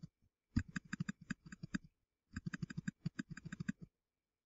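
Rapid computer mouse clicks, about eight a second, in two runs of a little over a second each with a short pause between. Each click dabs a low-opacity eraser along an edge in an image editor.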